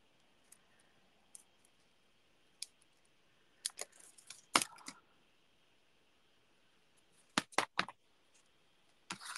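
Scattered light clicks and taps from handling a roll of glue dots and a ribbon on a craft desk, in two short clusters about four seconds in and about seven and a half seconds in, with a few single ticks between.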